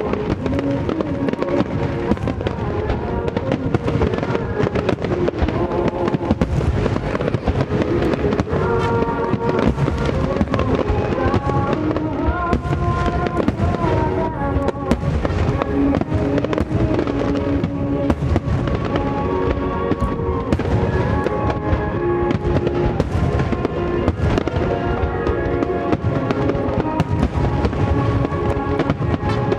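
A wide starmine fireworks barrage: shells bursting in rapid, dense succession with many sharp bangs, over loud music played along with the display.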